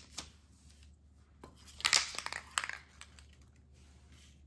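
Crinkling and rustling of a rag being handled in the hands, in short bouts, loudest around two seconds in.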